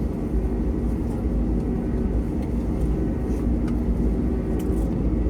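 Cabin noise of an Airbus A321neo on the ground after landing: a steady low rumble from the engines at idle and the air conditioning, with a few faint steady hums.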